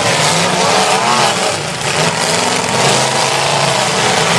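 Several demolition-derby cars' engines running and revving at once, their pitches rising and falling over one another in a loud, dense racket.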